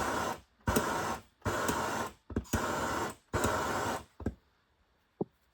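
Handheld gas torch flame hissing in five short bursts, each well under a second, as it is pulsed on and off to shrink heat-shrink tubing. Two short clicks follow near the end.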